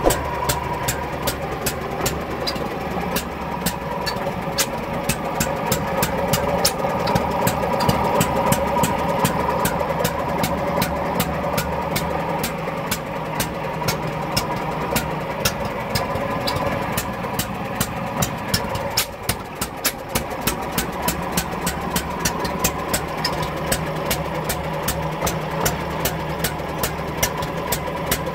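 Petter M type 5 hp two-stroke tank-cooled stationary engine running steadily, with a regular sharp exhaust beat.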